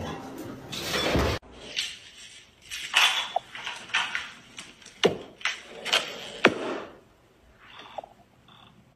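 A dog biting and pawing at a rubber balloon, with scraping rubbing noises, then two sharp cracks about five and six and a half seconds in as the balloon bursts.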